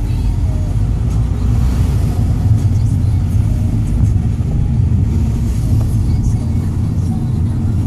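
Steady low rumble of a car driving at road speed, heard from inside the cabin: engine and tyre noise on the road surface.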